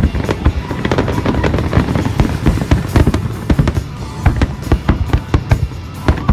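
Fireworks display going off in a rapid, irregular string of bangs and crackles, several per second over a continuous rumble.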